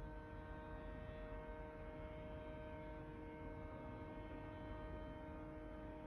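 Constant droning hum: several steady tones held at one pitch over a low rumble, with no change or break. This is the persistent noise heard at night.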